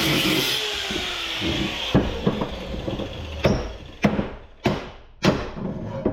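Hammer blows on scrap metal, about six sharp strikes spaced roughly half a second to a second apart. Before them, a steady machine-like noise winds down over the first second or so.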